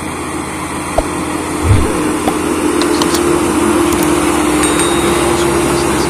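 Hamm HD 99 double-drum asphalt roller's diesel engine running steadily as it rolls over fresh asphalt, growing a little louder as it comes closer. There is a low thump about a second and a half in.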